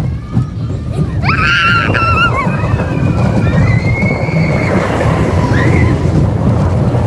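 Riders screaming on a mine-train roller coaster: a long, high, wavering scream starts about a second in and further shrieks follow, over the steady rumble of the coaster train on its track.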